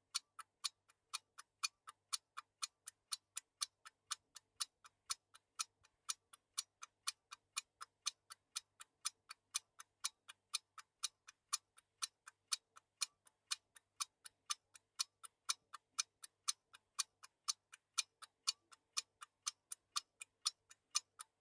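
A mechanical timepiece ticking: a steady run of crisp, even ticks, several a second.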